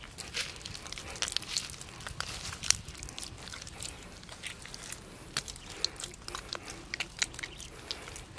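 Hands pressing and smoothing wet clay into a lining for a hole in the ground, heard close: irregular wet squelches and gritty crackles, busiest in the first three seconds, then sparser.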